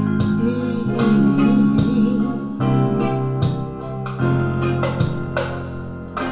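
Keyboard music with piano-like chords played back through Triangle Esprit Gaia EZ floorstanding loudspeakers, recorded by a microphone in front of the speakers in the listening room.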